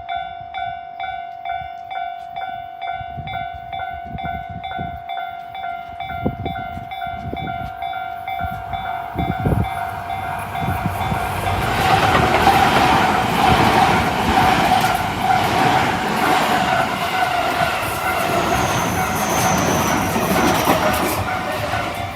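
Japanese railway level-crossing alarm ringing in a steady repeating rhythm, with alarm units of differing tones sounding together. About ten seconds in a train approaches and passes, its running noise and wheel clatter rising over the alarm, which keeps ringing.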